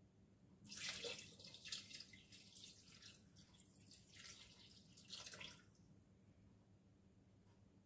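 Fish stock poured from a glass jar into a Thermomix's stainless-steel mixing bowl, splashing for about five seconds, with a last gush near the end as the jar is tipped right up.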